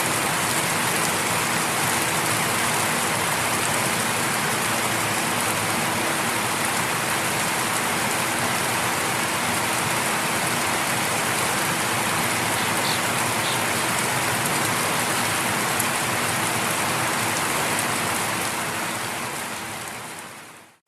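Light rain falling steadily on leaves, grass and concrete, an even hiss that fades out over the last few seconds.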